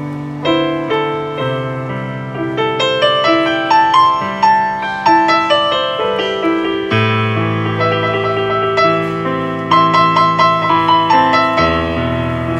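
Piano-toned keyboard music: a quick melody of struck notes, each dying away, over bass notes that change every second or two.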